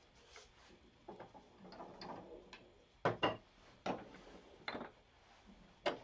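Several sharp knocks and clunks of wood and metal parts being handled at a wood lathe that is not running, the two loudest close together about halfway through.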